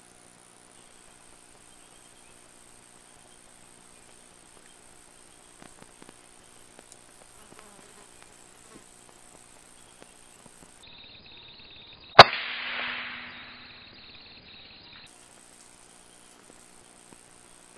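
A single rifle shot about twelve seconds in, a sharp crack with a rushing tail that fades over about a second and a half. Steady high-pitched insect drone throughout.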